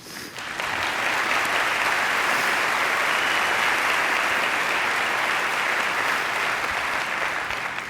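Large audience applauding, building within the first second and holding steady, easing a little near the end.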